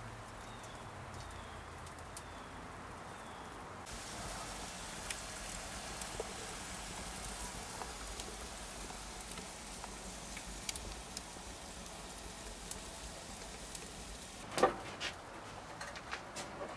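Wood fire crackling in a brick oven: a steady hiss with scattered small pops, and one sharper knock near the end.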